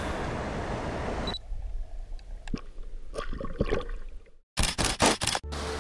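Steady rushing of the creek water. About a second and a half in it cuts to scattered scraping and rustling handling noise on the microphone. After a brief dropout comes a quick series of four or five sharp clicks, and music begins at the very end.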